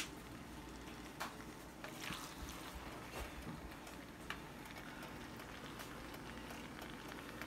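Faint, sparse clicks of a serving utensil against a skillet as creamy fettuccine is lifted out of it, over a low steady hum.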